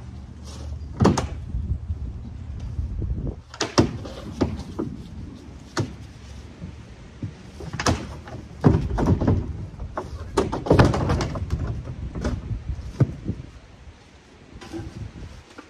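Large plastic shed wall panels being handled and taken down: a series of hollow plastic knocks, clatters and scrapes, busiest in the middle and quieter near the end.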